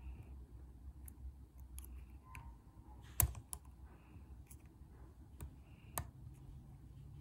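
Lock pick and tension wrench working the pins of a lock: scattered small clicks, with two sharper ones about three and six seconds in.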